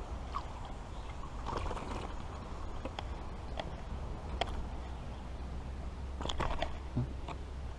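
Scattered light clicks and knocks of a just-caught bass and fishing tackle being handled in a jon boat, over a steady low rumble.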